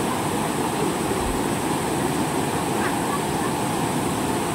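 Steady rush of a shallow, rocky river flowing over stones, an even unbroken noise.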